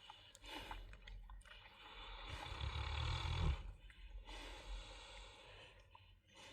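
A sleeping person snoring. One long snore swells over about a second and a half and is loudest about three and a half seconds in, with quieter breathing around it.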